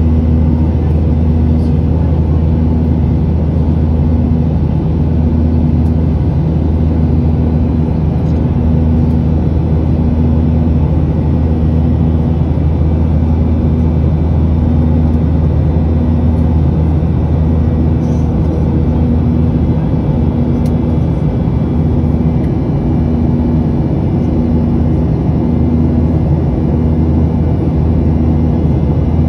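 Boeing 737-800 cabin noise heard from a window seat beside the wing: the CFM56-7B turbofans at climb power after take-off give a loud, steady rumble with a low hum that pulses about once a second.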